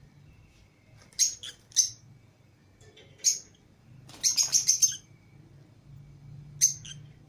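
Lovebirds giving short, sharp, high-pitched chirps: a few single calls in the first half, a quick run of about six a little past the middle, and one more near the end.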